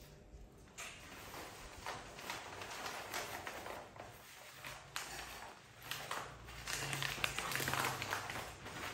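Dried medicinal herbs and roots rustling and crackling on paper as they are sorted by hand, with irregular small taps and clicks.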